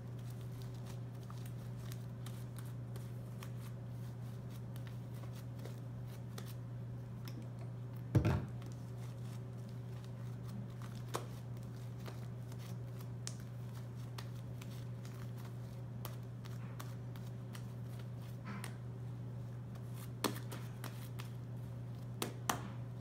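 Hands kneading and squishing purple fluffy slime made of glue, shaving cream and contact solution, with faint sticky clicks and crackles over a steady low hum. A single sharp thump comes about a third of the way in, and a few small snaps come near the end.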